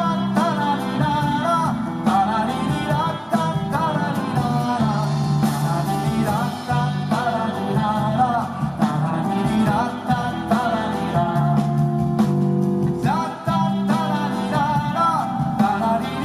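Live band music during a passage without lyrics: a sliding lead melody over a steady bass line.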